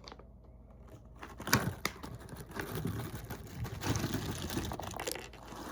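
Irregular rustling and crinkling of snack packaging being handled, with two sharp clicks about a second and a half in.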